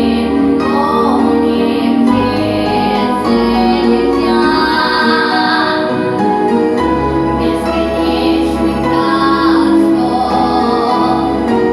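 A female voice singing a song over instrumental backing music.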